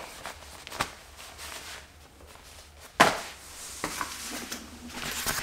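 Camping gear being handled: a few soft clicks, a sharp knock about three seconds in as something is set down, then rustling of items being picked up.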